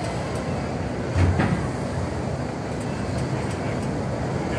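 Steady rumble of a swinging pirate-ship fairground ride in motion, with a low thump about a second in and another at the end.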